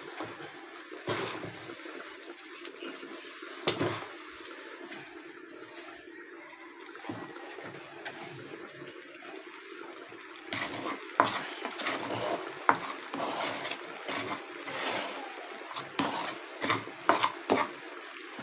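Clatter of utensils on a metal cooking pot: scattered knocks and scrapes over a steady background noise, growing busier and louder from about ten seconds in.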